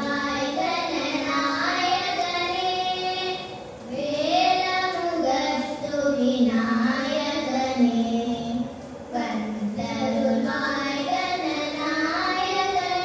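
Two young girls singing a Carnatic classical vocal piece together into microphones, the melody sliding and ornamented between long held notes, with two brief breaks for breath about four and nine seconds in.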